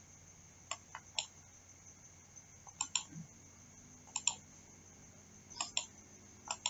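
Faint, sharp computer mouse clicks, about half a dozen spread over the pause, several of them in quick pairs.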